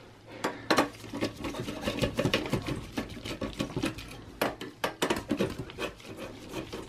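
Phillips screwdriver working screws in a desktop PC's sheet-metal hard drive cage, with gloved hands handling the drive: irregular metallic clicks, ticks and short scraping rubs.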